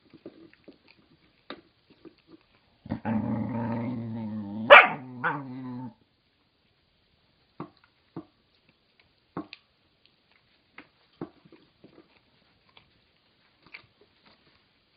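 A dog growls for about three seconds, breaking into two sharp barks near the end of the growl. Scattered soft clicks of a dog gnawing a chew come before and after.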